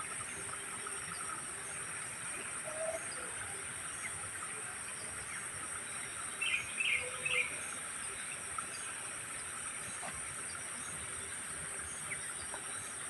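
Steady high-pitched drone of insects, with a short run of bird chirps about six to seven seconds in.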